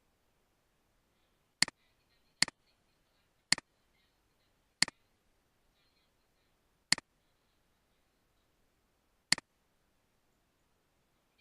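Computer mouse button clicking six times at uneven intervals. Each is a sharp click followed at once by a fainter one, like a press and release.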